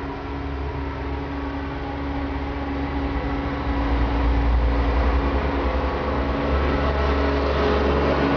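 A steady mechanical hum with a low rumble and several held tones, like a motor or fan running, getting a little louder about halfway through.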